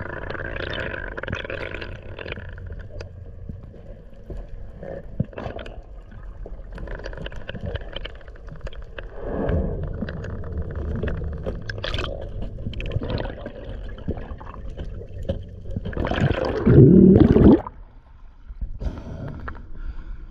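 Underwater water noise picked up by a freediver's action camera swimming over a reef: a steady wash with gurgles and bubbles. A loud, low rush of water comes about three-quarters of the way through.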